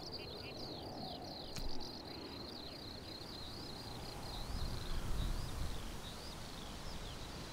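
Field ambience: a steady high insect trill with short falling chirps repeating over it, above a low rush of wind that swells twice.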